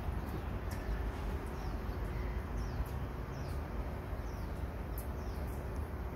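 Birds chirping in short, falling calls every second or so over a steady low outdoor rumble.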